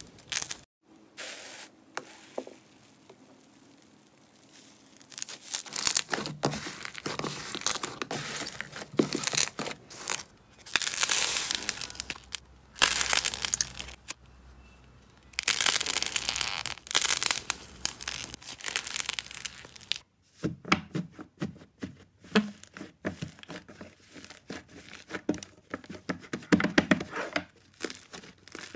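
Slime being stretched, pulled and kneaded by hand: after a few quiet seconds come long bursts of sticky tearing and crinkling, and in the last third a denser run of quick crackles and pops as the slime is squeezed.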